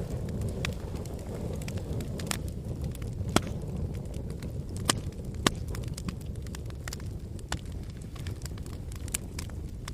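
Wood or charcoal fire crackling: irregular sharp pops, a few each second, over a steady low rumble.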